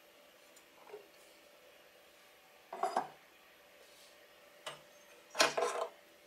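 Hard objects being handled, giving a few short clattering knocks, the loudest near the end.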